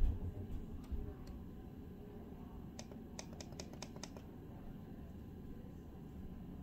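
Lutron Caseta wall dimmer's push buttons clicking under a finger: a few soft presses in the first second, then a quick run of about seven sharp clicks around three to four seconds in.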